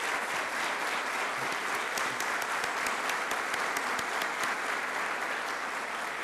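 Audience applauding: many people clapping at once in a dense, even patter, with a few sharper individual claps standing out in the middle.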